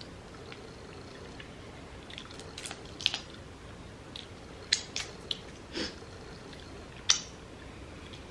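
Eating seafood by hand, crab and shrimp: chewing, with about half a dozen short, sharp cracks and clicks of shell and mouth. The loudest come about three seconds in, just under five seconds in and about seven seconds in.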